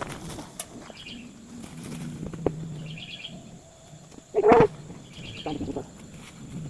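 Small birds chirping in short trilled phrases, three times. A louder, brief pitched sound comes about four and a half seconds in.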